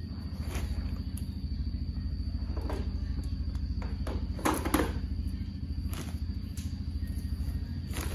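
Steady low mechanical hum, with a cluster of soft knocks and rustles about four and a half seconds in as a power cable is carried and handled.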